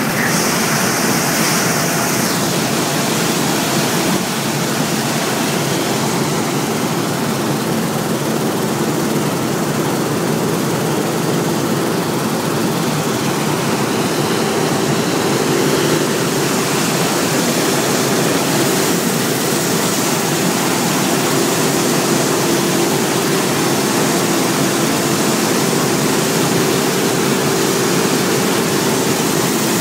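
Claas Lexion 600 combine harvester running steadily while harvesting wheat: a loud, even mechanical rush with a low steady drone.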